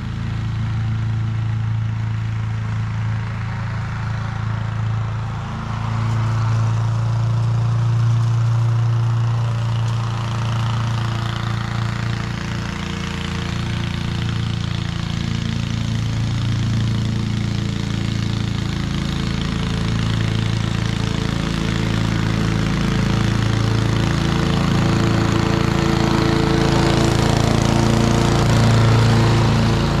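Honda HRC216 commercial walk-behind mower's single-cylinder four-stroke engine running steadily while mowing grass, growing louder near the end as the mower comes close.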